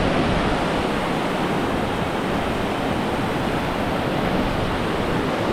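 Strong wind buffeting the camera microphone: a steady, loud rushing noise with a flickering low rumble.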